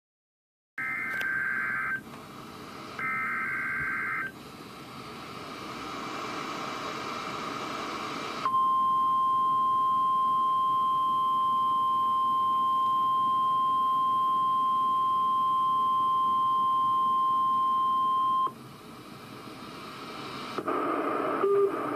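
NOAA Weather Radio Required Weekly Test. Two short screechy bursts of SAME digital header data, each about a second, give way to radio hiss. Then comes the steady 1050 Hz warning alarm tone, held for about ten seconds and cut off abruptly, followed by more hiss and the start of the announcer's voice near the end.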